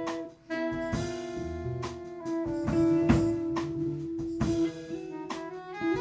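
Small jazz group of guitars, bass and drums playing, with a long held melody note through most of it over regular drum and cymbal strokes.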